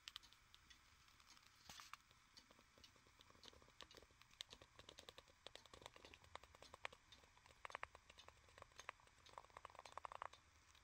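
Faint, irregular clicking from the mechanism of a Black Forest 8-day cuckoo clock, over near silence. The clicks come thicker about halfway through and again near the end.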